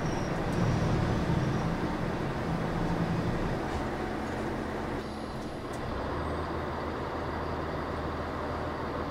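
KTR8000 'Tango no Umi' diesel railcar heard from inside the passenger cabin as it draws slowly into a station. The steady running noise drops about five seconds in, leaving a quieter, even engine hum.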